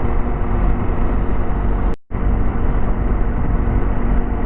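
Motorcycle engine running at steady cruising speed under heavy wind noise. The sound cuts out briefly about two seconds in.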